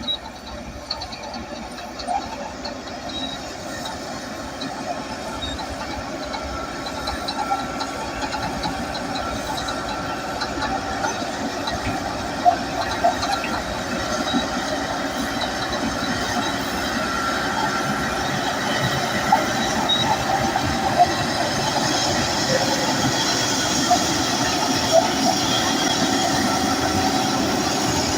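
Crawler bulldozer at work: its diesel engine runs while the steel tracks clank and squeal, with sharp metallic clicks. The sound grows steadily louder.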